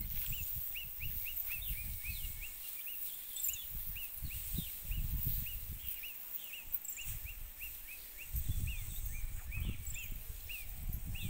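Wind buffeting the microphone in gusts, strongest near the start and again from about eight seconds in, over a steady run of short, high chirps repeating about three times a second.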